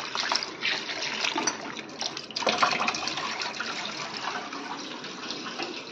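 Kitchen tap water running into a bowl of rice, with a hand swishing and splashing the grains in the water to rinse them.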